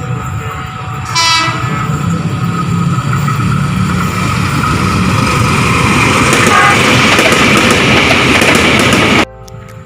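Tokyu electric commuter train sounding its electric horn in a short blast about a second in, with a fainter blast later, as its running noise grows steadily louder while it approaches. The sound cuts off abruptly near the end.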